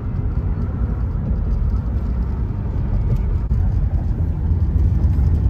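Car driving at highway speed, heard from inside the cabin: a steady low rumble of road and wind noise.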